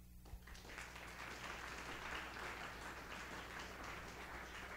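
Audience applauding, breaking out a fraction of a second in and keeping up a dense patter of many hands clapping.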